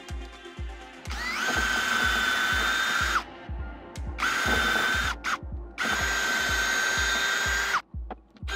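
WORX WU177 brushless 20 V drill/driver running in bursts with a steady high whine: spinning up about a second in and running for about two seconds, then a shorter run followed by two quick blips of the trigger, then another run of nearly two seconds that cuts off near the end.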